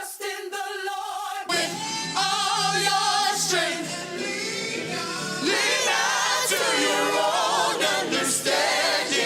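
Gospel choir singing with band accompaniment. A single held voice opens, and about a second and a half in the sound fills out with more voices and a steady low bass line.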